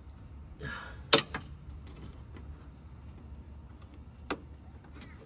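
Plastic electrical connector being unplugged from a Tesla Model 3 frunk latch assembly: a short scrape, then a sharp loud click about a second in and a softer one just after, with another click near the end.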